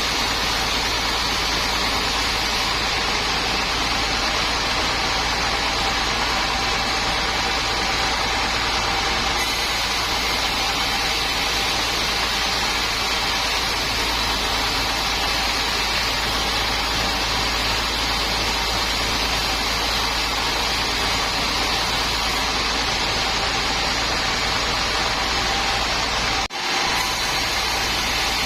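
Sawmill machinery running steadily: a loud, even engine-and-saw noise, broken by a momentary dropout about two seconds before the end.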